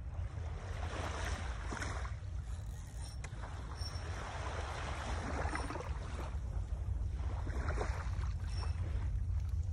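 Wind rumbling steadily on the microphone, with three brief swells of hiss a couple of seconds apart.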